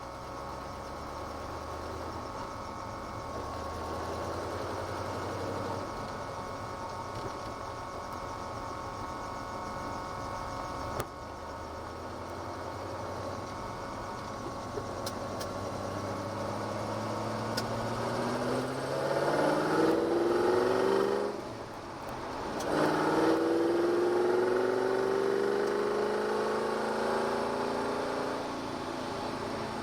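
Ford GT40's V8 engine, heard from inside the car. It runs steadily at first, then the revs climb for several seconds and break off briefly, as in a lift or gear change. It then pulls hard again at its loudest, rising slowly until it eases near the end.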